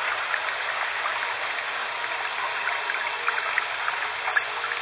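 Underwater ambience: a steady watery hiss with scattered faint crackles.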